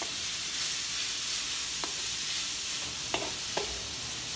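Sliced onions and garlic sizzling in hot oil in a metal wok while being stirred with a wooden spatula: the aromatics being sautéed as the base for pancit bihon. The spatula knocks sharply against the wok three times in the second half.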